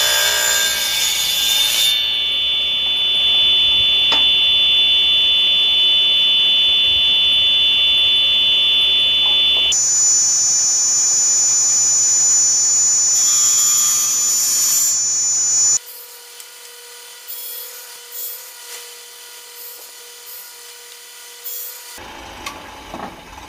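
Cheap table saw ripping pine boards: a burst of cutting noise as the blade goes through the wood, then the saw whining steadily at free speed. Partway through, the whine jumps higher and the blade cuts again, then the sound drops off abruptly to a quiet stretch with a few light knocks.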